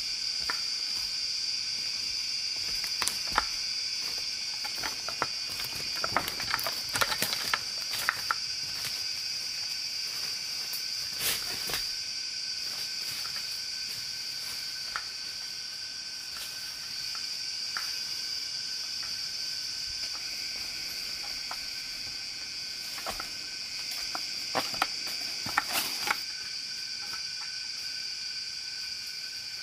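A steady, high-pitched chorus of insects, crickets or cicadas, drones on throughout. Scattered sharp clicks and snaps come in a few short clusters over it.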